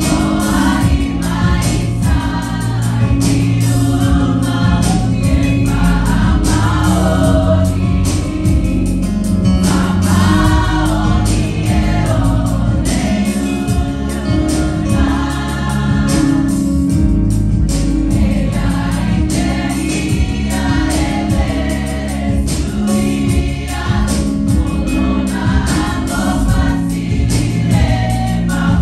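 A choir of women and girls singing a gospel song together, with instrumental accompaniment that has a steady bass line and drums.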